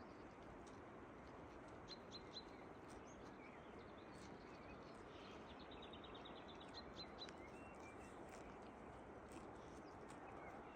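Faint steady hiss with a small bird calling over it: a few short high chirps about two seconds in, a quick trill of rapid notes around five to six seconds, then more single chirps.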